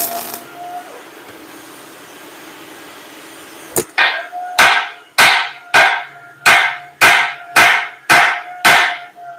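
A MIG welding arc crackling stops about half a second in; a few seconds later a hand hammer strikes steel on a truck rear axle housing about ten times, roughly every half second, each blow ringing briefly.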